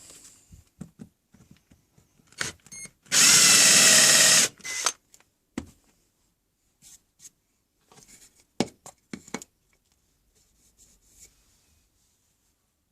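Power drill boring into pallet wood with a Forstner bit in one short burst of about a second and a half, followed by a few scattered knocks and clicks from handling the wood.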